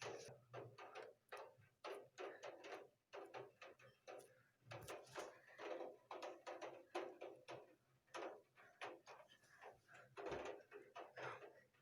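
Rain falling in separate heavy drops onto a hard surface: faint, irregular taps, several a second.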